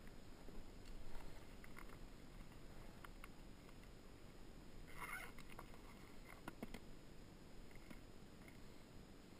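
Faint handling noise of fishing gear in a plastic jon boat: scattered light clicks and knocks as a soft tackle bag of plastic lure boxes is opened and a phone is taken out. A brief scratchy noise comes about five seconds in.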